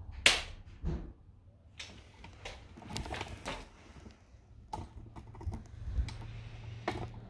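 Sharp, loud click of a spring-loaded Activator chiropractic adjusting instrument firing, adjusting the right foot's navicular bone, with a fainter click just over half a second later. Light clicks and taps of handling follow.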